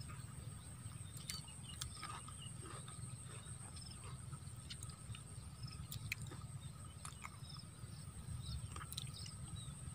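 Faint countryside ambience: a steady high-pitched insect drone with scattered short chirps and clicks over a low rumble.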